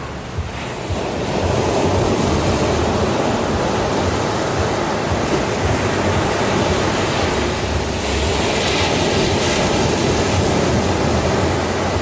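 Ocean surf breaking on a sandy beach: a continuous rush of waves and foam that swells after the first second, with a brighter hiss of breaking water from about eight seconds in.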